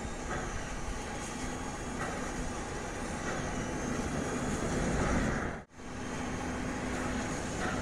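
Distant NZR Ww class steam tank locomotive working under heavy exhaust, a steady noisy sound with a faint hum over it. About three-quarters of the way through, the sound cuts out abruptly for an instant, then resumes.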